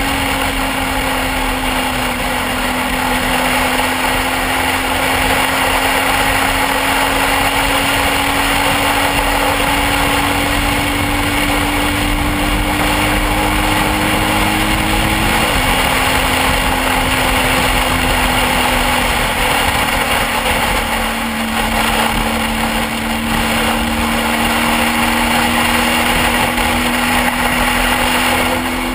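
Motorcycle engine running steadily under way over a dense rush of noise. Its note creeps slowly upward, then drops suddenly about halfway through, as at a gear change, and dips again a few seconds later.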